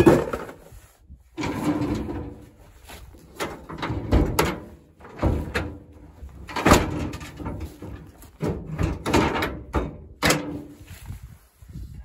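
Irregular metal clanks and bangs from the rear of a GAZ-69: tools being shifted in its steel cargo bed and the fold-down tailgate being swung shut and latched.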